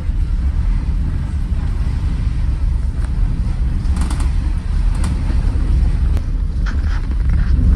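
Loud, uneven low rumble of wind buffeting the microphone aboard a ferry, with faint voices in the distance near the end.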